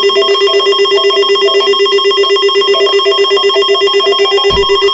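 Weather radio receiver sounding its alert alarm: a loud electronic tone trilling rapidly and evenly, the signal that a warning has come in. A brief low thud near the end.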